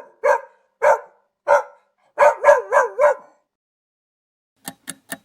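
A dog barking: single barks about every half second, then a quick run of four. Near the end a steady ticking starts, about four ticks a second.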